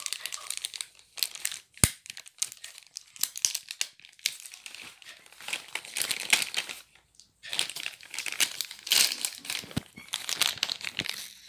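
Plastic wrapping crinkling and rustling in irregular spurts as hands unwrap a riflescope, with one sharp tap about two seconds in.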